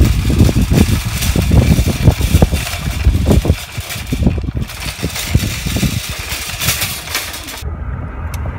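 Wire shopping cart loaded with bags rattling and rumbling unevenly as it is pushed over parking-lot asphalt. Near the end it cuts to a quieter steady low hum inside a car.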